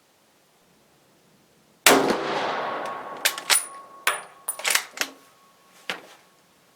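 A single .30-06 shot from a Brazilian M1908/34 Mauser bolt-action rifle about two seconds in, with a long echoing tail. It is followed by a series of sharp metallic clacks as the bolt is worked and the spent case ejected.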